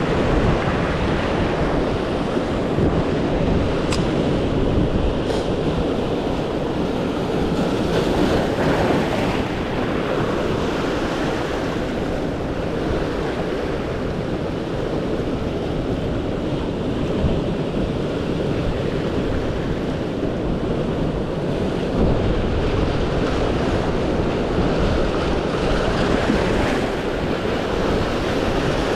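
Ocean surf washing, with wind buffeting the microphone: a steady rushing noise that swells and eases.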